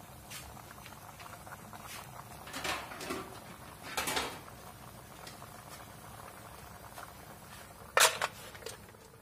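Clams cooking in an aluminium wok, with a faint steady crackle and two short knocks about three and four seconds in. Near the end comes a loud sharp clank as the aluminium lid is set on the wok.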